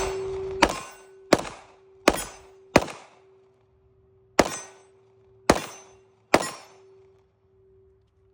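Gunshots at a shooting range: seven shots at uneven spacing, roughly a second apart, each with a short echoing tail, and a faint steady tone beneath them.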